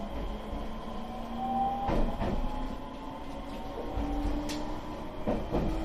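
JR Shikoku 7000 series electric train pulling away and gaining speed: the whine of its inverter-driven traction motors rises in pitch in steps. The wheels clack over rail joints in quick pairs about two seconds in and again near the end.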